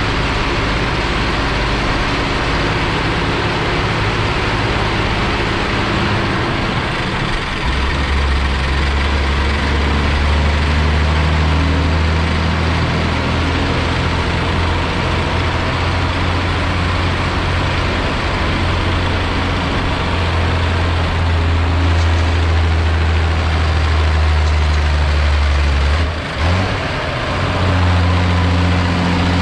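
Ursus 1201 tractor's six-cylinder diesel engine running steadily. It grows louder and deeper about a quarter of the way in, falters briefly near the end, then carries on at a different pitch.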